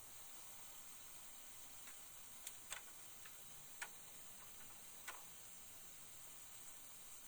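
Near silence: a faint steady hiss with a handful of light, sharp clicks between about two and five seconds in.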